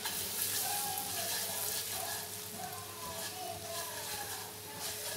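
Chopped garlic and crushed red chilli frying in hot oil, a steady sizzle that is loudest in the first couple of seconds.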